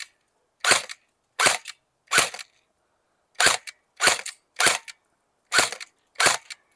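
Game Face Insurgent electric airsoft AK-47 (AEG) firing single shots on semi-automatic: eight sharp cracks at uneven gaps of about half a second to a second and a half, several with a quick second click right after.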